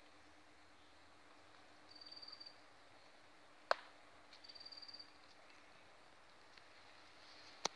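Two short, high, rapid trills, each about half a second, the call of a small animal, with a sharp click between them and another near the end, over a faint steady hum.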